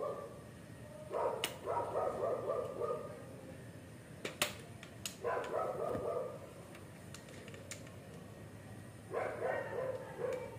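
A dog barking in three short bouts, about a second in, in the middle and near the end, with a few sharp clicks from tools and plastic as a head-unit dash frame is handled.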